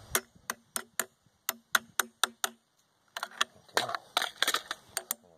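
A run of sharp, light clicking taps, about three a second, with a short pause midway through.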